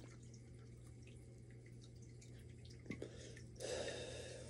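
A man drawing on a cigarette, a small lip click, then a soft exhale of smoke starting about three and a half seconds in.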